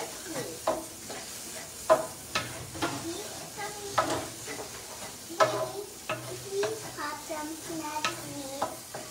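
Scrambled eggs and vegetables sizzling in a frying pan while a spatula stirs them. The spatula scrapes and knocks sharply against the pan about once a second over the steady hiss of the frying.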